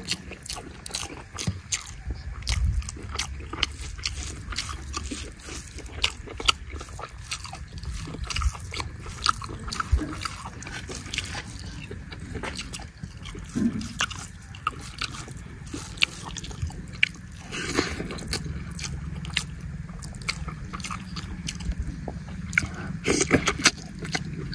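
Close-up chewing and mouth sounds of a person eating rice and chicken curry by hand: many short, irregular clicks and smacks.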